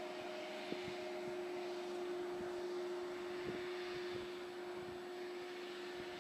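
Steady mechanical hum holding one constant tone over a light hiss, with a few faint taps.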